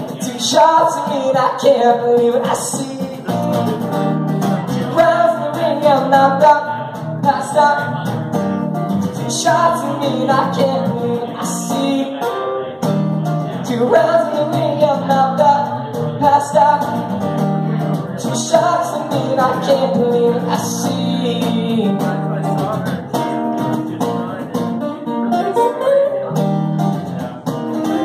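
A man singing while playing an acoustic guitar, a live solo song.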